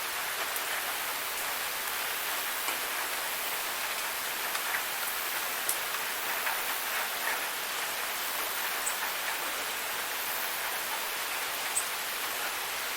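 Waterfall: a steady hiss of falling, splashing water, with scattered brief sharper splashes and drips.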